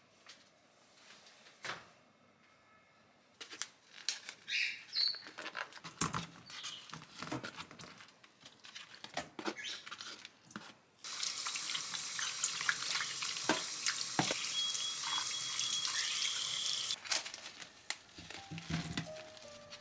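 Tap water running into a kitchen sink for about six seconds, starting a little past halfway, with scattered knocks and clinks of things being handled before and after it.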